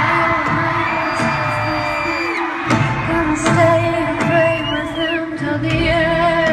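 Live pop band music with a woman singing drawn-out notes, recorded from the audience at a concert.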